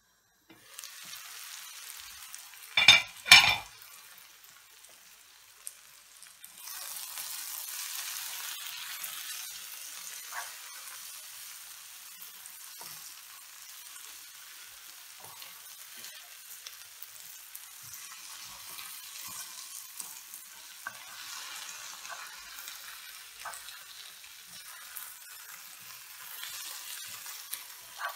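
Sliced onions sizzling in a nonstick frying pan while a wooden spoon stirs them, with small scrapes and taps of the spoon on the pan. About three seconds in, two loud clanks from the glass lid as it comes off the pan, and the sizzling grows louder a few seconds later.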